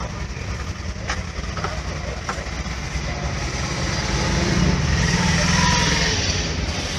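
Motor traffic running steadily, a low rumble that swells louder about four to six seconds in as a vehicle passes. Two short clicks come about one and two seconds in.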